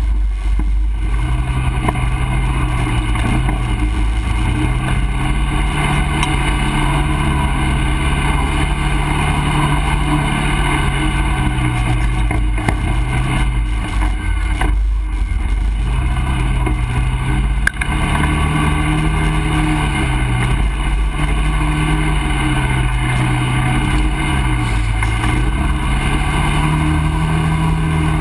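ATV engine running close to the microphone under changing throttle, its pitch rising and falling every few seconds, over a constant rushing noise.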